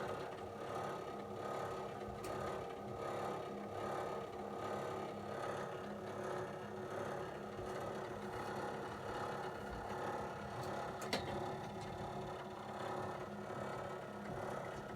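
Hercal indirect coil hot water cylinder and its heating pipework humming with a steady vibrating rumble, several held tones wavering slightly in level, with a light click about eleven seconds in. The noise comes every time the heating comes on and is the fault the owner is asking to have fixed.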